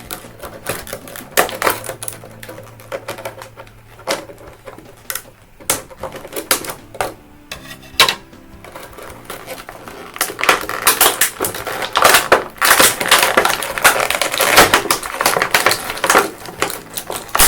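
Plastic packaging of a boxed action figure being handled and pulled apart: irregular clicking and crinkling, denser and louder in the second half.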